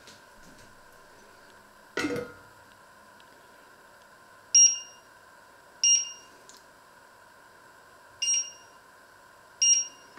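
A metal lid clanks onto a stainless steel pot about two seconds in. Then the touch controls of an electric glass-top hob beep four times as a finger presses them, each a short two-tone beep, over a faint steady hum.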